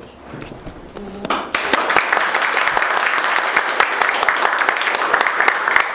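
A group of people clapping and applauding. It begins about a second in and quickly builds to a steady run of dense, fast claps.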